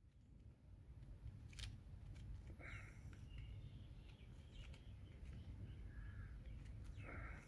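Very faint, short bird chirps, a few scattered from about two and a half seconds in, over a low steady rumble, with one soft click before the first chirp.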